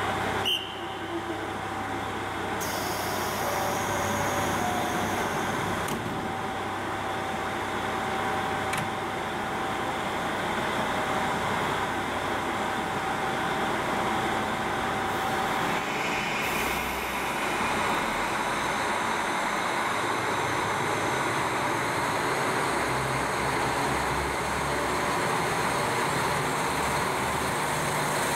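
A KiHa 40 diesel railcar's engine idles at the platform. About halfway through, the low engine sound changes as the railcar pulls away, and it is rolling past by the end.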